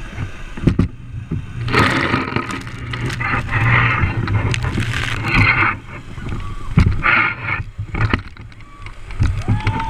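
Water spraying and splashing on a wet obstacle-course slide, with scraping and rough knocks, and long stretches of rushing noise. A brief held tone rises and falls near the end.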